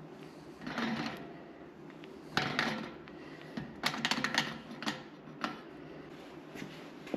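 Several short bursts of clicking and rattling, like tools and small metal parts being handled during hand work, over a steady low hum.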